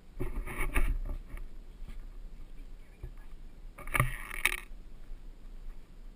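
Rustling and bumping handling noise from an action camera on a pole carried by a walking hiker, over a low steady rumble, with two louder bursts, one near the start and one about four seconds in as the pole swings.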